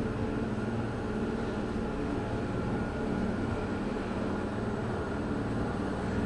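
Traction elevator car travelling in its hoistway, a steady low hum and rumble heard from inside the car.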